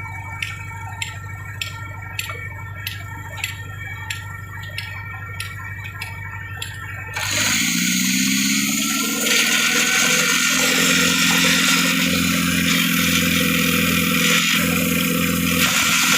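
Compressor-driven rock-drilling machine: a steady low engine hum with regular ticking, then about seven seconds in a sudden loud rush of compressed air with a low tone that rises and settles.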